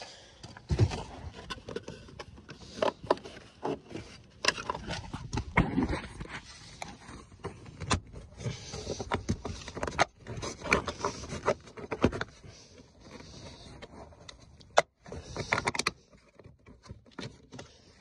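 Irregular knocks, clicks and rustling of hands working around a car seat and its trim while a seatbelt is fitted.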